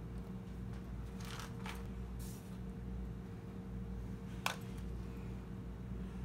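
Shredded iceberg lettuce rustling softly as it is laid on a sandwich by hand, in a few brief rustles, then one sharp click about four and a half seconds in, over a steady low hum.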